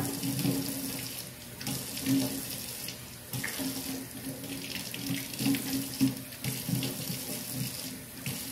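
Kitchen tap running into a sink, the water splashing with brief dips in the flow about a second and a half in and near the end.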